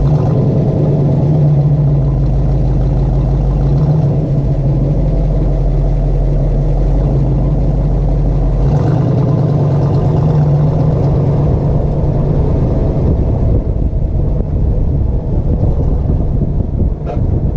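1958 Corvette's small-block V8 running steadily while the car circles in a tight left turn, with a grinding noise from the right rear wheel that comes only on left turns. A run of short sharp ticks comes near the end.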